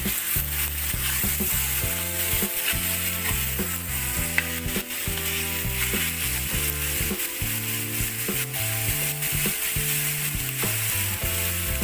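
Beef chunks and ground spice paste sautéing in a wok, sizzling steadily while a metal spatula stirs and scrapes through them. Steady low tones that change in steps run underneath, as of soft background music.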